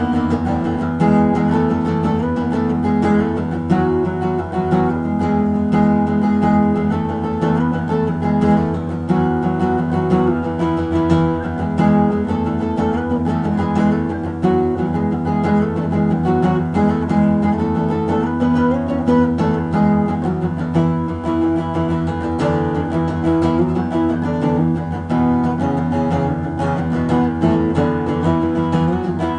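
Acoustic guitar played solo, strumming chords at a steady pace in an instrumental passage of a song.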